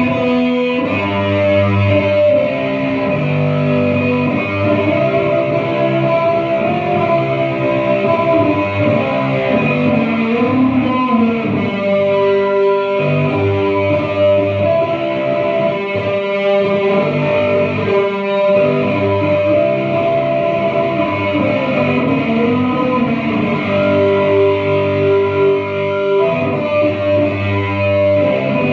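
Guitar music: held notes and chords that change every second or two, at a steady loudness.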